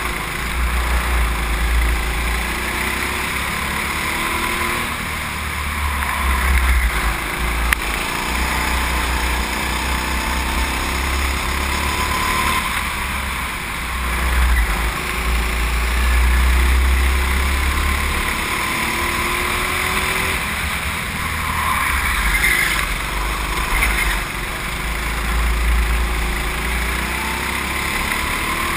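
Go-kart engine running hard on a lap, its pitch rising and falling through the corners, under heavy rumble of wind and vibration on the kart-mounted microphone.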